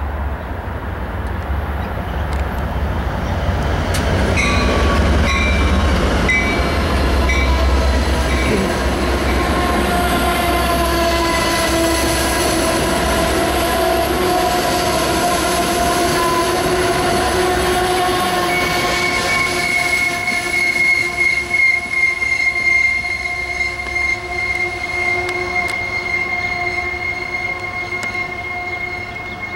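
Amtrak Pacific Surfliner passenger train arriving. The diesel locomotive rumbles past for the first several seconds, with a short run of repeated high tones. Then comes a long, steady, high-pitched squeal from the cars' wheels and brakes as the train slows into the station.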